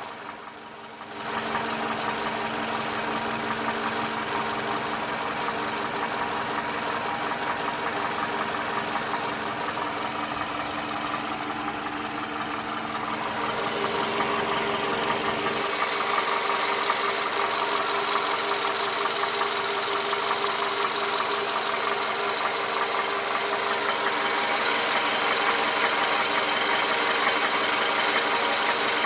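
Toyota 2AZ-FE 2.4-litre four-cylinder engine idling with a knock. The sound steps up, louder and brighter, about halfway through.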